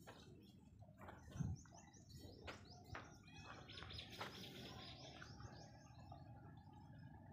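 Small birds chirping faintly, with a quick run of high twittering notes about halfway through; a brief low thump about a second and a half in.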